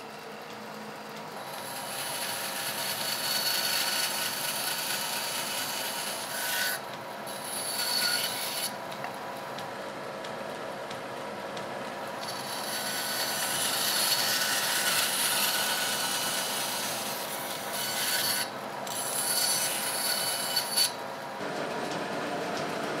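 Bandsaw running and rip-cutting a wooden block into blanks for wheel spokes. The sawing hiss comes in long stretches broken by short pauses, over the machine's steady hum.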